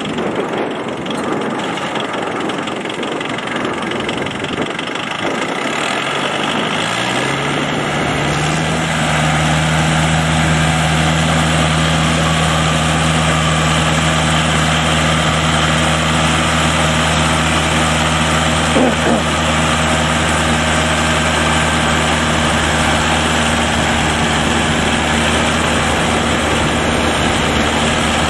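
Shibaura compact tractor's engine driving a rotary levee former through paddy mud. It runs rough at first, then its revs rise over a couple of seconds about seven seconds in and hold steady at working speed.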